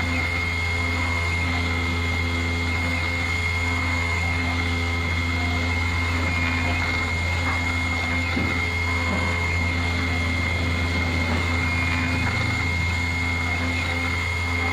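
Small 100 W spindle of a 2417 desktop CNC router running with a steady high whine while its engraving bit cuts aluminium in shallow, slow passes. A lower hum underneath starts and stops in short stretches as the axes move.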